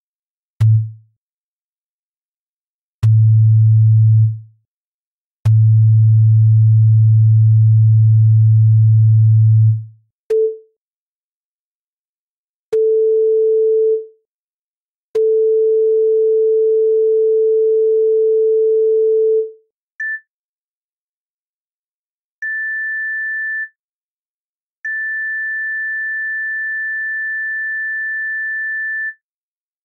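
Synthesized sine-wave tones in a short-medium-long rhythm played three times, each group on a single steady pitch, each group two octaves higher than the one before: low, then middle, then high. Each tone starts with a slight click, and the high group is quieter than the first two.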